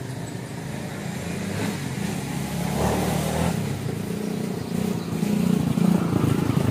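A small engine running steadily, growing louder near the end.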